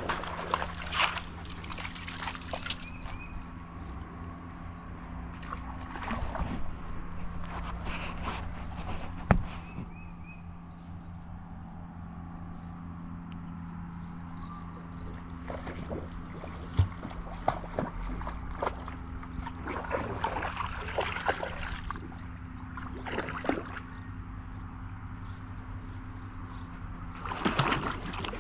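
Small shallow creek trickling, with a steady low hum underneath and scattered rustles and clicks close by. One sharp click comes about nine seconds in.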